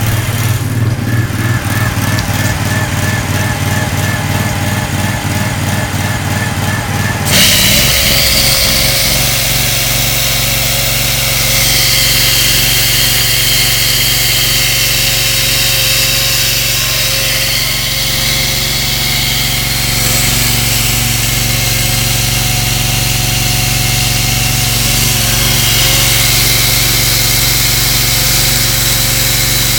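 Partner hydraulic power unit's engine running steadily. About seven seconds in, the Stanley hydraulic concrete chainsaw comes in suddenly and much louder, its water-fed chain grinding into a concrete block.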